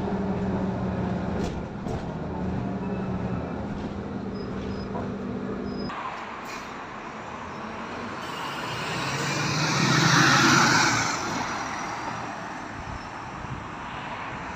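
Diesel engine of a Solaris Urbino 18 III articulated bus humming steadily, heard from inside the cabin while the bus drives. About six seconds in the sound cuts to outside at the stop, where the bus pulls away with its engine and road noise swelling to a peak and then fading as it moves off.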